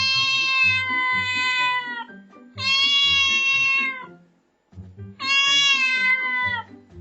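A cat meowing three times. Each meow is long and drawn out, about one and a half to two seconds, holding its pitch and dipping at the end. Quieter background music plays underneath.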